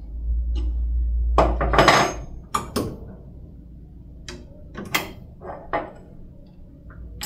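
A 13 mm wrench clinking and scraping on steel screws and the metal mounting plate while the end effector's mounting screws are tightened. A low rumble and a rasping scrape come in the first two seconds, then a scattering of sharp metallic clicks.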